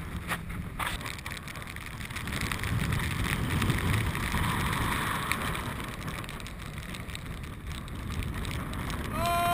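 Strong wind buffeting an action camera's microphone over the rush of choppy water, with a couple of short knocks about half a second in. Right at the end a voice starts a drawn-out call.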